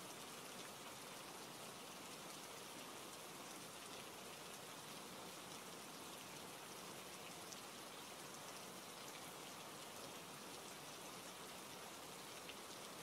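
Steady rain falling: an even, fairly quiet hiss with faint scattered drop ticks.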